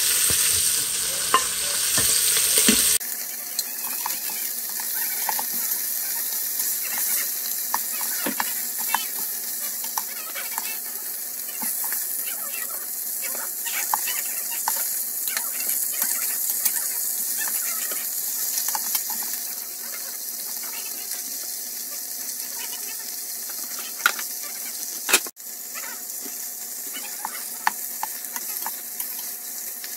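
Beef short ribs sizzling as they sear in hot oil in an electric pressure cooker's stainless pot on sauté, with light clicks of metal tongs turning the meat and one sharper click near the end.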